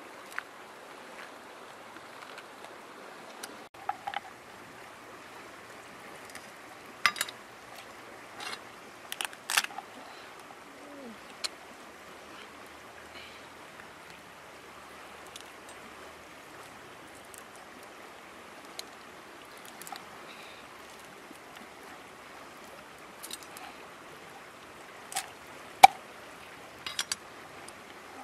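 Crabs being cleaned by hand: scattered sharp cracks and snaps as the shells are cut with a cleaver and the top shells pried off, a few in quick clusters and the loudest near the end. A steady rush of stream water runs underneath.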